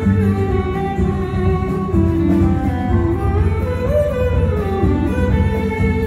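Live acoustic band playing an instrumental passage: a violin carries a sliding melody over upright double bass and acoustic guitar.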